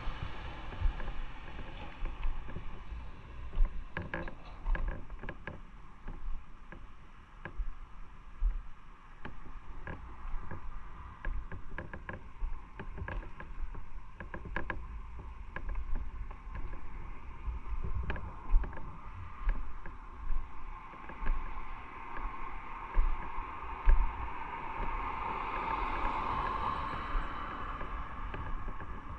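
Motorcycle on the move, heard from a bike- or rider-mounted microphone: a steady rush of wind and road noise with the engine under it, broken by frequent short knocks. The rushing grows louder about twenty seconds in, then eases near the end.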